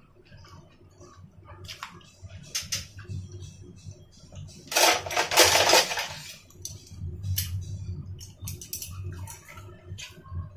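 Chopsticks clicking and clinking against a ceramic plate and bowl while eating, with one louder, noisy sound lasting a little over a second about five seconds in. Near the end, kitchen scissors snip the beef on the plate.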